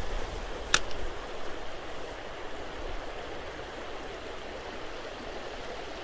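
Creek water running steadily, with one sharp click a little under a second in.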